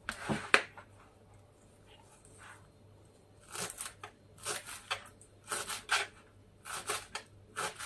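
Kitchen knife chopping fresh dill on a plastic cutting board. A couple of crisp cuts come near the start, then a pause, then a string of spaced chops from about three and a half seconds in.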